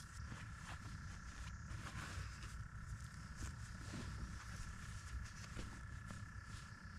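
Faint rustling and handling of a padded camouflage blanket as it is folded, over a steady low rumble and a faint steady high tone.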